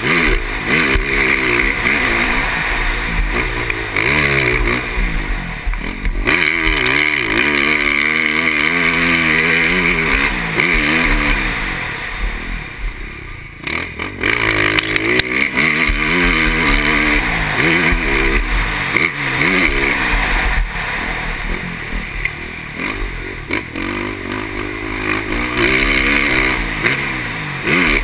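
KTM motocross bike's engine, heard on board, revving up and easing off again and again as the rider works the throttle and shifts on a dirt track. The pitch climbs and drops repeatedly, with a short lull about halfway through.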